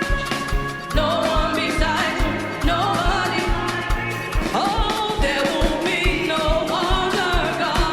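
Lively gospel praise music: singing over a band with a steady, quick kick-drum beat.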